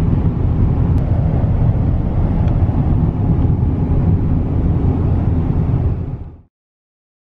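Steady road noise inside a moving car's cabin, mostly low in pitch, which cuts off abruptly about six and a half seconds in.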